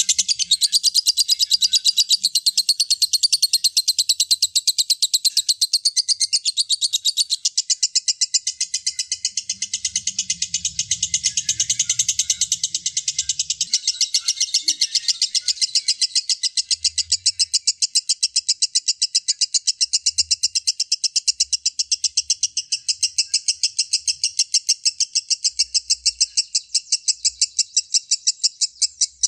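A lovebird's long ngekek: a fast chattering trill of rapidly repeated high-pitched notes, held without a break.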